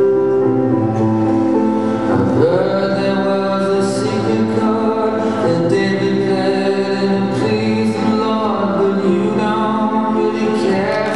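Music with singing, the accompaniment for a synchronized swimming solo routine; held notes, with a voice sliding up in pitch about two seconds in.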